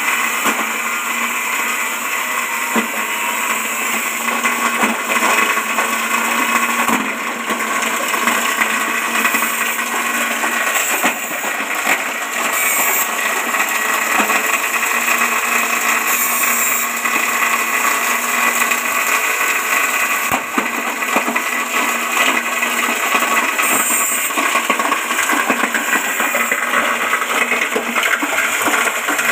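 JG 25 grass chopper running, its electric motor driving the cutter by V-belt while grass is shredded: a steady loud whirring grind with a hissy edge, flaring briefly higher a few times.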